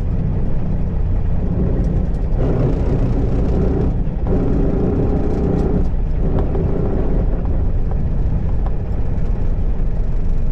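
Peterbilt 379 semi truck driving at road speed, heard from inside the cab: a steady diesel engine drone and tyre rumble, with a steadier pitched engine hum standing out for a few seconds in the middle.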